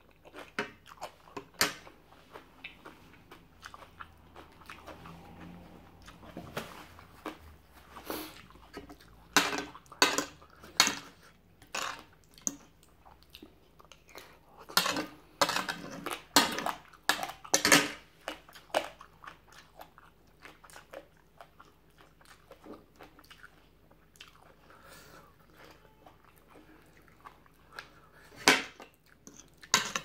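A person eating close to the microphone: biting and chewing crunchy food, with irregular sharp crunches that come in clusters and are loudest around the middle.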